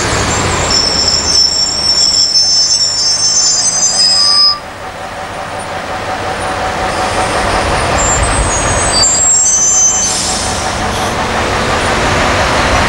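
Liebherr mobile crane driving slowly past, its diesel engine running with high-pitched squeals over it. The sound breaks off abruptly about four and a half seconds in, then builds again as the crane comes closer, with more squeals later on.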